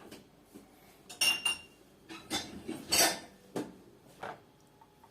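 Hard dishware being handled and set down, with clinks and knocks. A ringing clink comes a little over a second in, a louder knock about three seconds in, and a few lighter knocks between and after.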